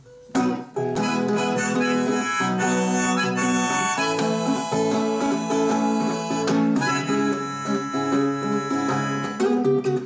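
Harmonica in a neck holder playing a melody over an acoustic guitar accompaniment, starting suddenly about a third of a second in and continuing steadily.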